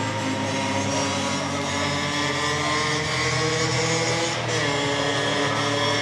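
A motor engine running steadily, its pitch drifting slightly down and up.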